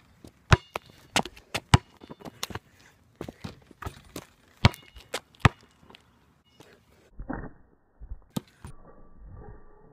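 A basketball knocking: a series of sharp, irregular thuds as it bounces and strikes the backboard and rim.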